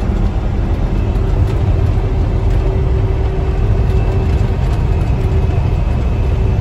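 Mack Titan semi-truck's diesel engine and road noise heard from inside the cab while cruising at highway speed: a steady low rumble with a faint steady whine above it.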